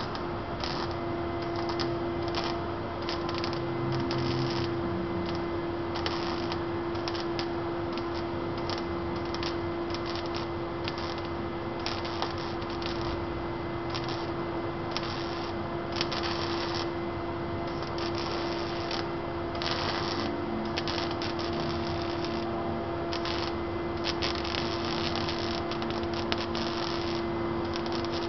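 Wire-feed welder's arc crackling and sizzling in short, irregular runs while welding car body sheet metal, over a steady hum.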